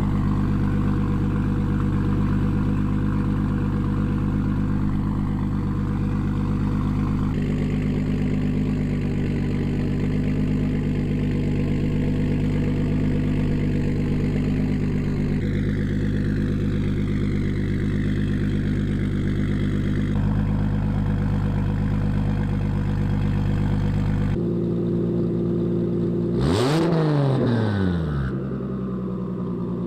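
MKIV Toyota Supra's single-turbo 2JZ straight-six idling steadily through a 4-inch Tomei Expreme Ti titanium cat-back exhaust, its tone changing abruptly a few times where separate clips are joined. Near the end there is one quick rev that rises and falls back to idle.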